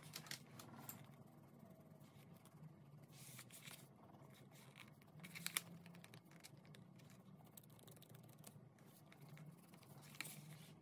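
Faint, intermittent scratching of a colored pencil shading on paper, with a slightly louder scrape about five and a half seconds in.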